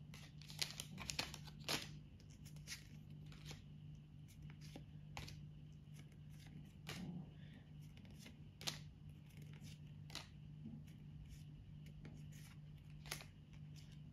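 Faint, scattered clicks and rustles of Pokémon trading cards being handled and shuffled one at a time, over a steady low hum.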